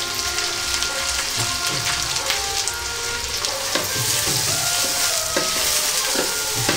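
Finely chopped onions sizzling and crackling in hot ghee in a brass pan, stirred with a metal ladle that scrapes against the pan a few times.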